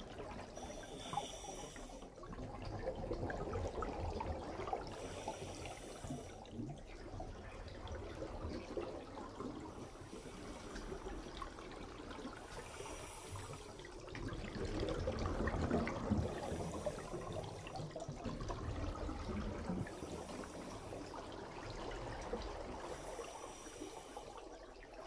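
Muffled underwater water movement and bubbling, with a brief hiss every few seconds.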